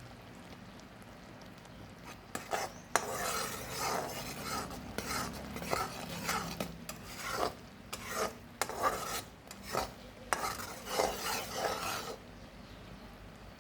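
A spoon stirring and scraping around a pan of cooking jaggery syrup, in uneven strokes every half second to a second, starting about two seconds in and stopping about twelve seconds in. The syrup is being cooked down toward the thick, lump-forming stage needed for peanut chikki.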